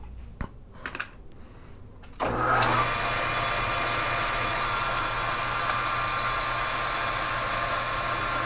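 A few light clicks, then about two seconds in a South Bend metal lathe is switched on and runs up to speed. It carries on running steadily, with a low hum and a higher whine from its motor and drive.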